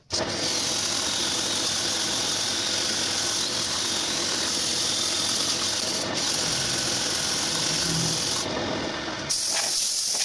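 Wood lathe spinning a wooden bowl while a turning tool cuts the wood: a loud, steady, rough scraping noise that starts and stops abruptly, its top end changing briefly about eight and a half seconds in.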